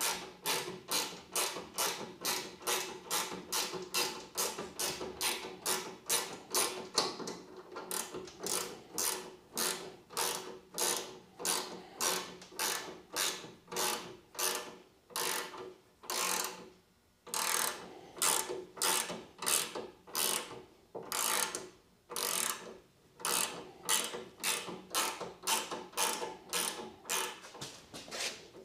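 Ratchet wrench clicking in a steady run of strokes, about two a second, with a short pause a little past halfway. It is turning a bracket's adjustment bolt to raise the CNC's fourth axis up to a straight edge.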